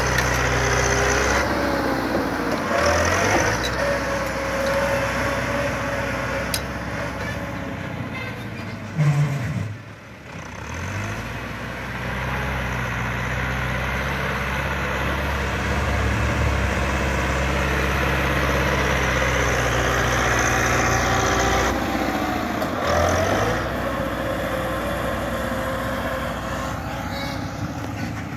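Massey Ferguson 385 tractor's diesel engine working under load as it pushes sand with a front blade. The revs rise and fall several times, with a short drop in loudness about ten seconds in.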